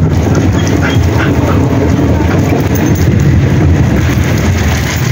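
Rain falling on an open tiled rooftop, with wind buffeting the microphone in a loud, steady rumble.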